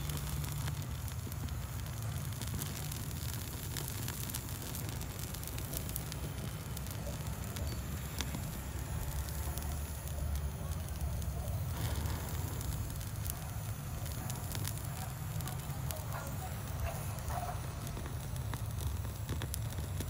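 Handheld gas torch flame running with a steady low rush, while dry shimpaku juniper foliage burns and crackles in scattered snaps.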